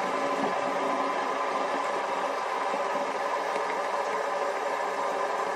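Fidget spinners spinning, a steady whir.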